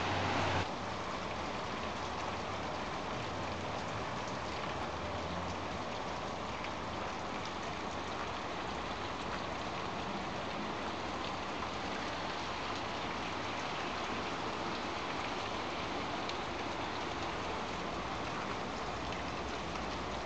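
Heavy downpour: rain falling in a steady, even hiss, a little louder for the first moment.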